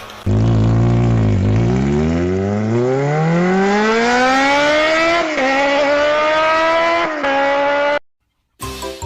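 A motor-vehicle engine accelerating, its pitch dipping briefly and then climbing steadily for several seconds, cut off abruptly near the end.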